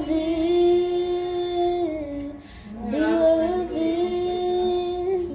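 A young girl singing. Her voice holds long notes in two phrases, with a short break for breath about halfway through.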